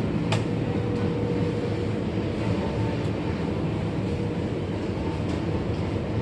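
Steady rumble of a moving commuter train heard from inside the carriage, with a single sharp click shortly after it starts.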